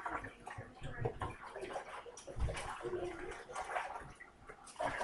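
Wet sloshing and splashing of hands working in water, with irregular small splashes.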